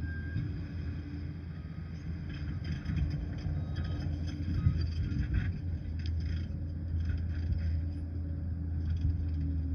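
Liebherr PR 746 crawler dozer's diesel engine running steadily under work, with a run of clanks and knocks through the middle.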